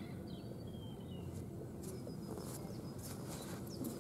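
Small birds chirping with short, high calls over a steady low outdoor rumble, with a few faint clicks.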